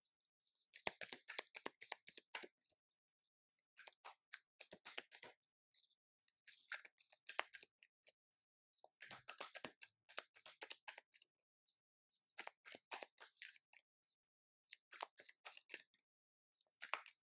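A deck of tarot cards being shuffled by hand: repeated bursts of rapid, crisp card flicking, each a second or two long, with brief pauses between them.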